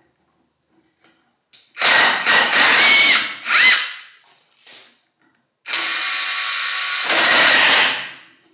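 18V brushless cordless impact wrench loosening a nut from a bolt held in a vise, in two short loud bursts with a whine that rises and falls. Then, after a pause, it runs steadily as it drives the nut back on, going louder for about a second near the end as it tightens.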